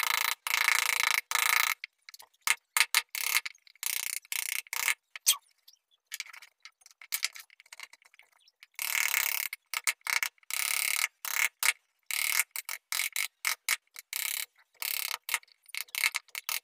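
Wooden mallet tapping a carving chisel into a wooden door panel: quick light knocks in uneven runs, with a lull about six to eight seconds in.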